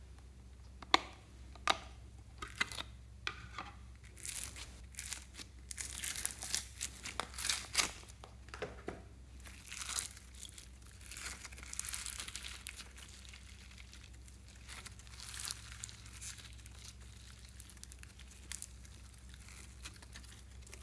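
Two sharp clicks of a plastic slime tub's latches, then pink foam-bead slime being pulled and stretched by hand, crackling and squishing, busiest in the middle and fading off toward the end.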